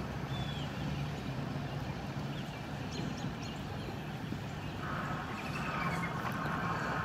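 Outdoor background of a steady low hum with a few short bird chirps; a second steady higher hum joins about five seconds in.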